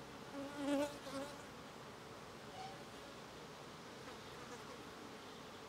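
Buckfast honeybees buzzing on an open nucleus frame: a louder buzz for under a second about half a second in, then a faint steady hum.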